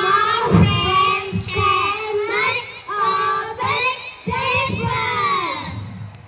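A child's voice singing a song over a backing track, the singing fading out near the end.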